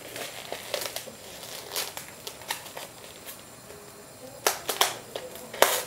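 Plastic wrap being peeled off a plastic meat tray: scattered crinkles and clicks, with a few sharp snaps of the film about four and a half and five and a half seconds in.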